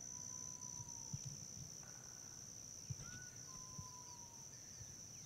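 Faint open-field ambience: a steady, high-pitched insect drone of crickets or katydids, with two long, faint, slightly falling whistled bird notes and a short higher chirp in between.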